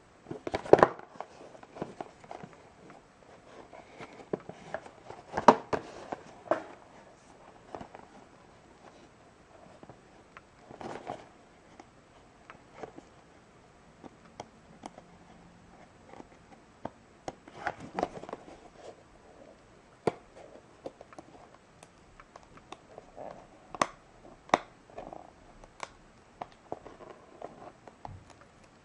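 Hands handling a small cardboard toy box with a clear plastic window, fingers picking at its edges and flaps: scattered clicks, taps and short rustles of card and plastic, the loudest about a second in and again about five seconds later.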